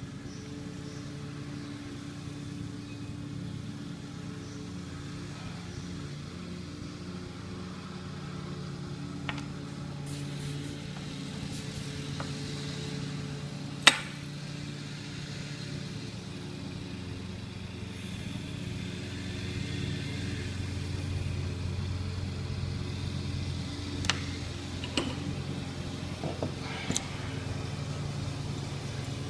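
A steady low, engine-like hum with a sharp click about halfway through and a few lighter clicks near the end.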